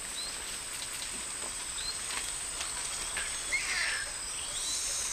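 Tropical forest ambience: a steady high insect drone with scattered short bird chirps, and a brief warbling bird call about three and a half seconds in.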